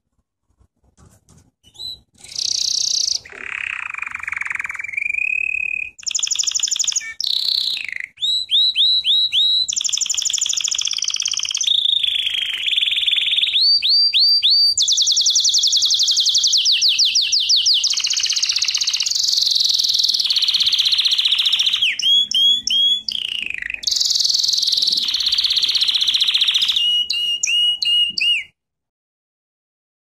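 Canary singing a long song of many varied phrases: fast runs of repeated notes and rolling trills, one after another. The song starts about two seconds in and stops suddenly near the end.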